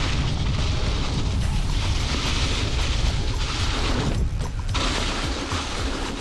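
Electric mountain bike riding fast down a leaf-covered dirt trail: wind buffeting the action camera's microphone over a constant low rumble, with tyres rolling and the bike rattling. The higher rolling noise drops out for about half a second around four seconds in.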